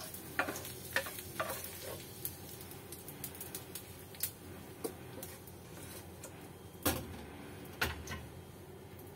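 Wooden spatula scraping and knocking against a frying pan as fried shallots, chillies and garlic are scooped out into a stone mortar: scattered clicks and taps, with two louder knocks late on.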